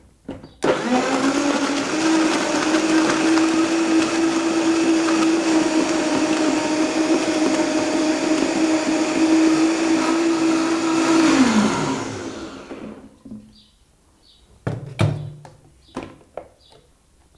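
A high-powered countertop blender switches on sharply and runs at a steady high speed, crushing ice with strawberries, raw yam and water into a smoothie. About eleven seconds later it winds down with a falling pitch. A few sharp knocks follow near the end.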